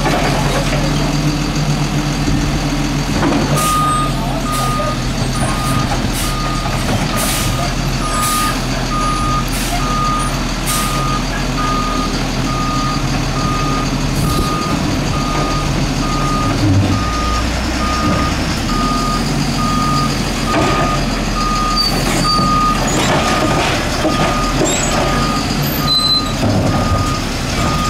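Garbage truck's reverse alarm beeping at an even pace over its steady idling engine. A few short sharp noises are mixed in.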